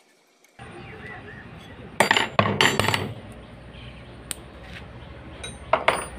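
Sharp metal clinks and knocks in two short clusters with a single tap between them, as the steel connecting-rod cap and hand tools of a single-cylinder diesel engine are handled and set down.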